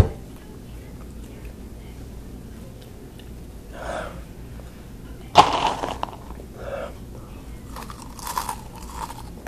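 A man breathing hard against the burn of spicy snacks, with a loud sharp huff of breath about five seconds in and softer breathy exhales around it. Near the end comes crunching as he puts another crunchy hot snack in his mouth. A sharp knock sounds at the very start.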